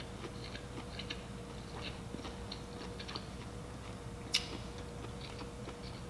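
Close-miked eating sounds: soft chewing and small mouth clicks, with one sharper click about four seconds in.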